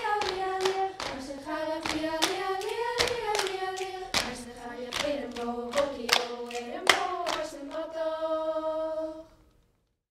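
A group of young voices singing a Scottish Gaelic mouth-music reel together, keeping time with sharp hand claps and slaps. Near the end the claps stop, the song closes on a long held note, and everything cuts off about nine seconds in.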